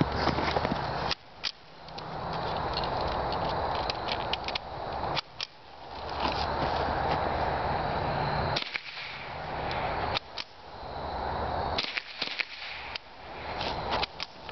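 Ruger 10/22 semi-automatic .22 rimfire rifle firing in irregular strings of sharp, short shots, several clusters spread across the stretch, with a steady hiss between shots that dips after each cluster and swells back.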